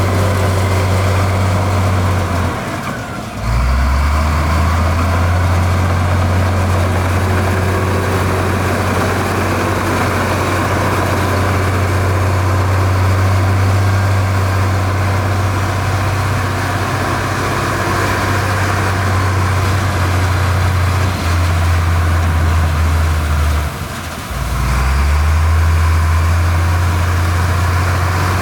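Heavy diesel engine of road-building machinery running steadily with a deep drone. It drops away briefly twice, about three seconds in and again near the end, then picks up again.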